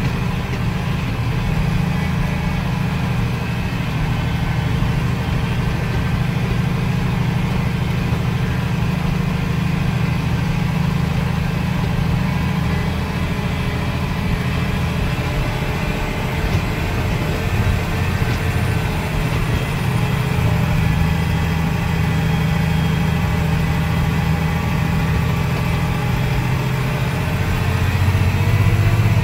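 Tractor engine running steadily, heard from inside the cab as a low drone, a little louder near the end.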